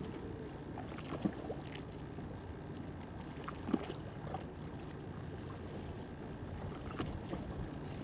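Steady low rumble of water lapping and wind on the microphone, with a couple of faint knocks, one about a second in and one near the middle.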